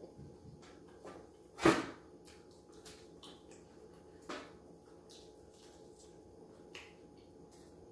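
Close-up eating sounds: chewing and mouth clicks, with one loud sharp sound about one and a half seconds in and a smaller one a little past the middle.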